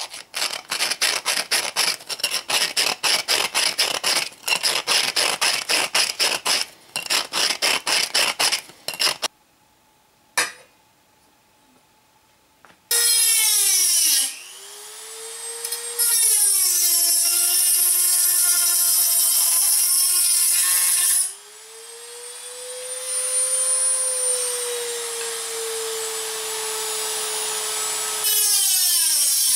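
A hand file rasps over the rim of a tin can in quick, even strokes for about nine seconds. After a short pause, a small rotary tool with an abrasive cut-off disc whines as it cuts slots in the tin can, its pitch dipping under load while the hiss of the disc on the metal starts and stops; about a second after it starts it spins down and restarts.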